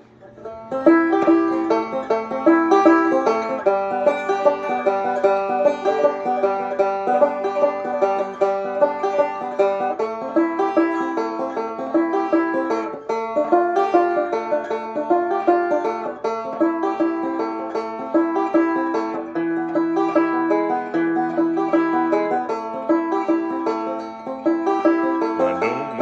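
Instrumental intro of a bluegrass song: a banjo playing fast rolling picking over a string-band backing, with a quick, steady beat.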